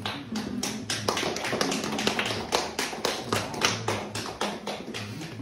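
A small group of people applauding, with uneven, scattered hand claps.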